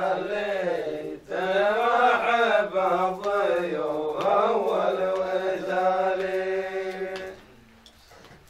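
A man chanting a line of Arabic poetry unaccompanied in long, drawn-out notes. He takes a short break about a second in, and the voice stops about seven seconds in.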